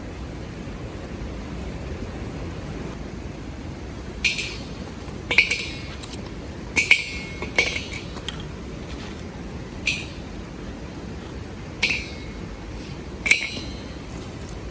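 Metal camping cookware being handled, knocking and clinking together about seven times at irregular intervals, each clink ringing briefly. A steady low rush runs underneath.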